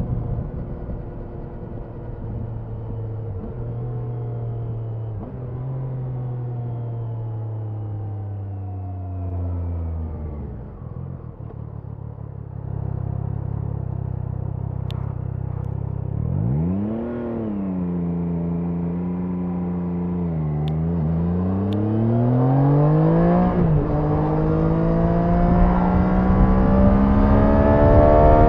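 Triumph Daytona 660's three-cylinder engine heard onboard while riding. Engine speed falls away for about the first ten seconds as the bike slows, stays low for a few seconds, then comes back up with a quick rev, and climbs in two pulls with a short break for a gear change between them near the end.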